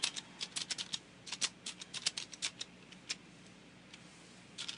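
Computer keyboard keys clicking as a short phrase is typed. There is a quick, uneven run of keystrokes for about three seconds, then a pause, then a couple more keystrokes near the end.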